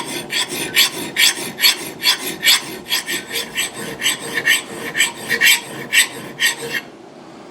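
Vintage Simmons hand file stroked rapidly across the steel edge of an axe bit, about four rasping strokes a second, stopping near the end. The file is cutting poorly, one side better than the other, which the filer thinks may come from heavy wear or dull teeth.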